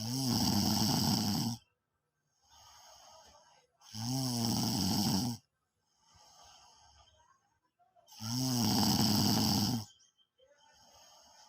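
A person snoring loudly: three long snores about four seconds apart, each followed by a softer breath out.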